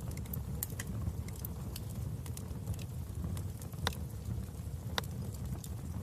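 Wood fire burning in a fireplace: a steady low rumble of flames with scattered crackles and pops, two sharper pops about four and five seconds in.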